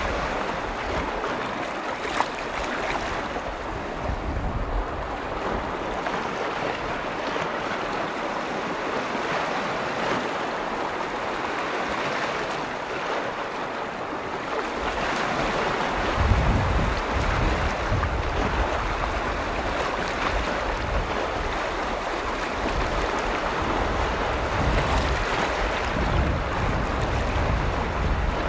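Waves of Lake Vänern washing steadily against the shore, with wind rumbling on the microphone from about halfway through.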